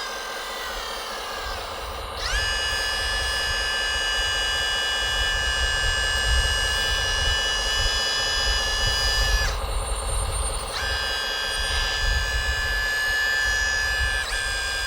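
High whine of electric motors in radio-controlled construction models, over a low rumble. The pitch rises about two seconds in, cuts back briefly around ten seconds, then picks up again.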